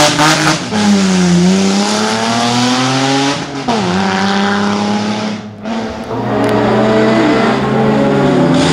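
BMW E30 3 Series rally car accelerating hard away up the road. Its engine note drops and climbs again at each upshift, twice in the first four seconds. About six seconds in, the engine of another rally car coming up the stage takes over.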